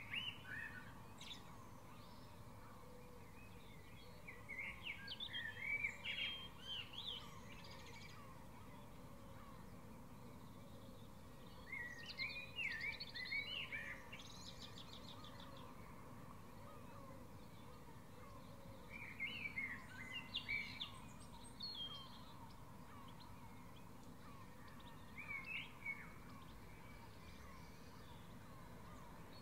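Spring dawn chorus: a songbird sings a loud warbled phrase about every six seconds, five times in all, over steady low background noise and fainter distant birdsong.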